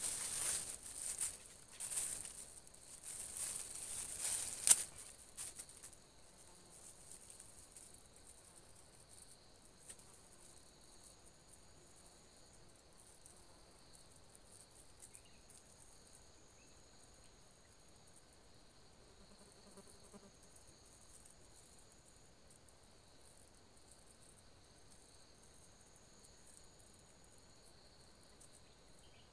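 Rustling and crinkling as a bag is handled for the first five seconds or so, ending in one sharp snap; then a faint, steady, high-pitched insect drone from the surrounding forest.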